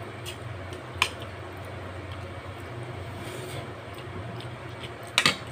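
Spoon and fork clinking against a plate, once about a second in and a few times near the end, over a steady low hum.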